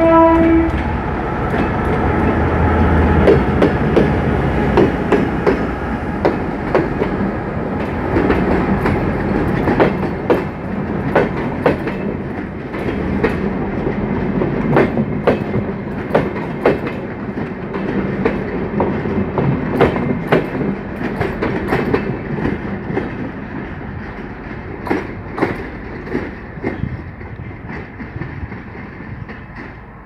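GM G22 diesel locomotive gives a short horn blast right at the start. It runs by with its engine rumbling, then its passenger coaches pass with wheels clacking over the rail joints, the sound fading over the last few seconds as the train moves away.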